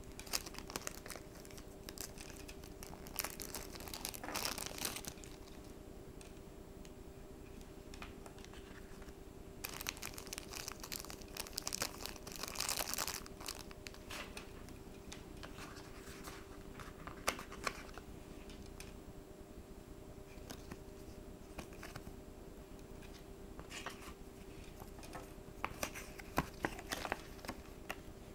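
Small clear plastic packaging bag crinkling and rustling as it is handled, in several bursts, over a faint steady hum.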